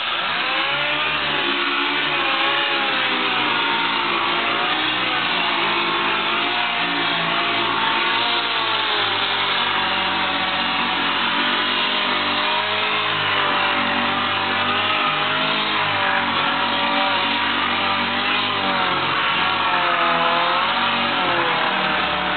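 Air-powered jitterbug (orbital pad) sander running against a stainless steel sink, scouring it with an abrasive pad: a steady whirring whose pitch wavers up and down as the sander is pressed and moved.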